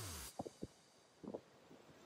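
Electronic background music that cuts off a moment in, then a low hush with a few faint, short low thumps.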